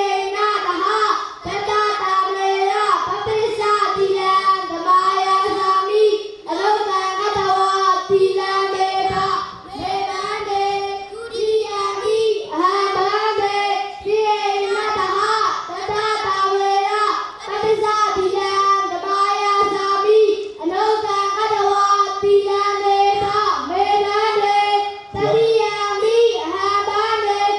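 Young Buddhist novice monks chanting a recitation into a microphone, mostly held on one steady note, in phrases broken by short pauses for breath.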